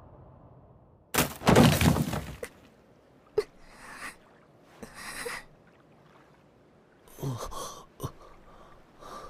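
A loud, sharp gasp about a second in, followed by quieter shaky breaths and another voiced gasp near the end, with a few small clicks in between.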